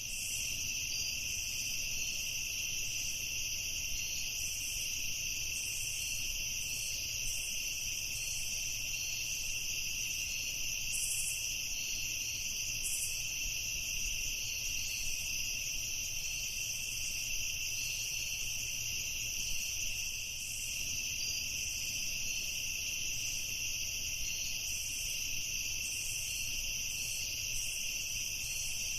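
Night chorus of crickets trilling steadily and without pause, at two high pitches, over a faint low rumble.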